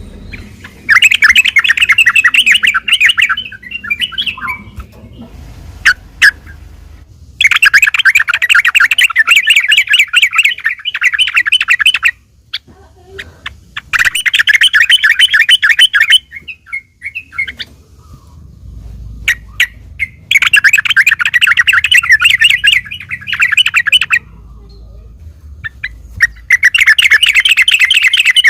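Yellow-vented bulbul singing in loud bursts of rapid chattering notes, about five bursts of two to four seconds each with short pauses between.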